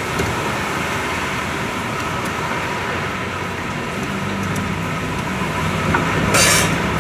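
Steady rumble of road traffic, with a short hiss-like burst near the end.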